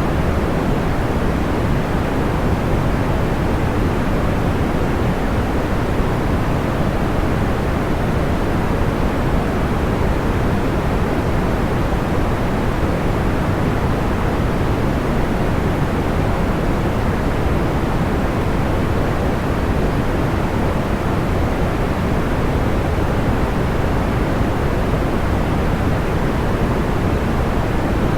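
Steady, unchanging synthetic noise of the pink or brown kind: a deep, soft hiss weighted toward the low end, with no crackles or pops standing out.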